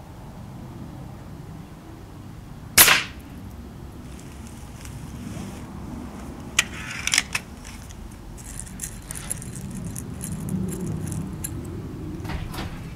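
A single shot from an RWS Diana 34 spring-piston .177 pellet rifle, one sharp crack about three seconds in. About four seconds later come a few lighter clicks and faint ticks.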